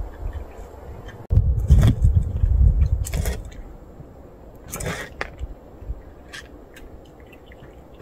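Stray cats crunching dry kibble from a bowl: small crisp clicks, scattered through the second half. A loud low rumble with a few short hissing rushes comes between about one and four seconds in, and is the loudest sound.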